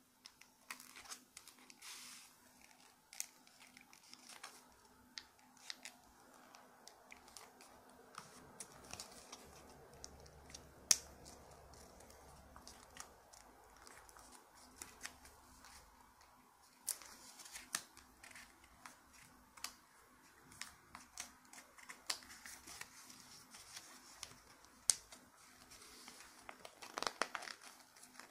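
Origami paper being handled, folded and creased by hand: soft crinkling with scattered sharp crackles and clicks, a few louder ones about eleven seconds in and a quick cluster near the end.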